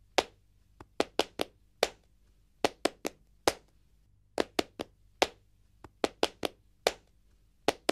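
A run of sharp, dry percussive taps, about twenty in all, falling in uneven groups of two to four with short pauses between, each dying away at once.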